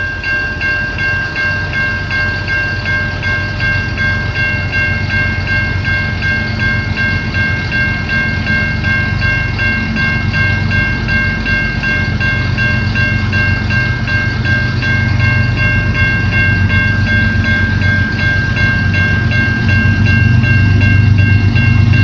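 Railway level-crossing warning bell ringing over and over, over the low rumble of an approaching CN freight train's diesel locomotives, which grows steadily louder.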